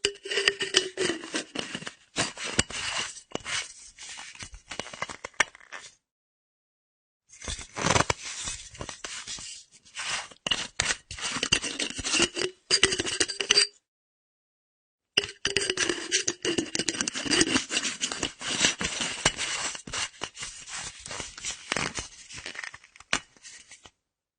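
Empty metal flask's screw cap being twisted open and closed: threads scraping and clicking, with a light metallic ring from the hollow body. Three takes of about six seconds each, separated by silences.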